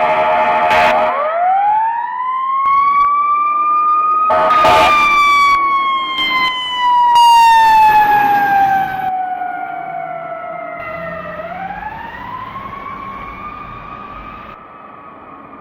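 Fire rescue truck's air horn blasting, then its siren winding up into a long wail. A second short air horn blast comes about four and a half seconds in. The siren slowly winds down, rises again near the end, and grows fainter.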